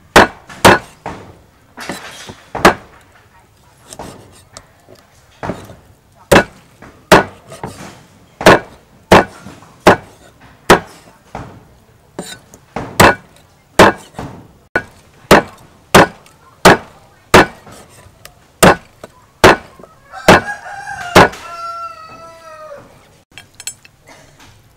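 Cleaver chopping raw chicken on a thick wooden chopping block: sharp, loud chops a little more than one a second. A rooster crows once near the end.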